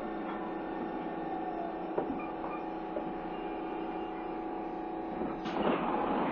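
Tobu 30000 series commuter train running through a subway tunnel, heard from inside the car: a steady hum with a few faint clicks. A louder rumble builds near the end.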